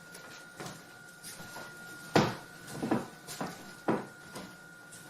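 A few knocks and clunks on a hard surface, the loudest about two seconds in and three more following within two seconds, over a faint steady high-pitched tone.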